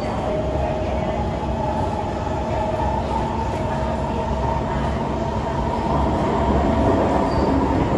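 Kawasaki–Tokyo Car C151 metro train heard from inside the passenger car while running at speed: a steady rumble of wheels on rail with a steady whine over it, growing a little louder about six seconds in.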